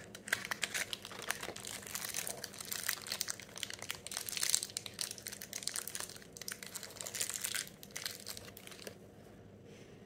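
Thin clear plastic wrapping crinkling and rustling in the hands as a new ball bearing is unwrapped, with small clicks of handling. It stops about nine seconds in.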